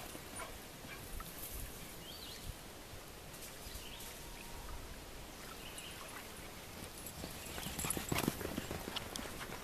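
Soft, scattered footfalls and scuffs on loose sand, becoming busier and louder about eight seconds in.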